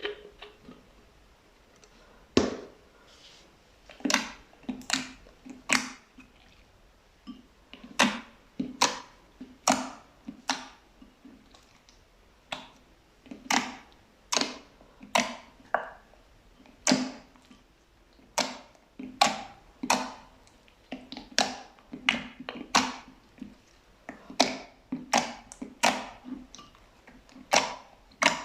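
Fluffy slime being pressed and squished by hand. It gives short, sharp pops and clicks in uneven bursts, roughly one or two a second.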